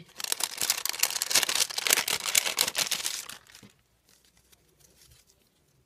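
A translucent envelope crinkling and rustling in the hands as it is carefully opened and paper frames are slid out. The sound stops about three and a half seconds in.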